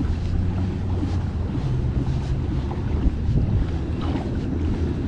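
Wind buffeting the microphone as a steady low rumble, with faint water sounds around the kayak.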